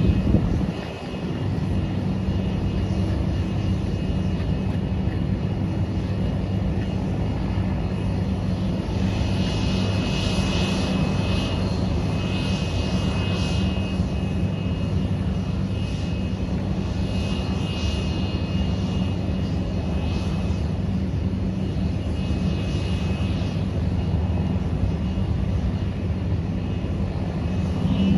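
Turbofan jet engines of an Embraer ERJ-135LR running steadily, a low hum under a high whine that grows stronger and fades several times. There is a brief louder noise right at the start.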